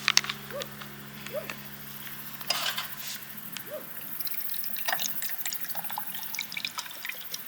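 Water dripping and trickling, with a few small plops and light clicks.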